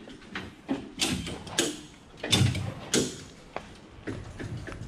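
Clanks and knocks of metal hardware as a car is strapped down on a chassis dyno, with four louder knocks spread through the middle and light clicks between them.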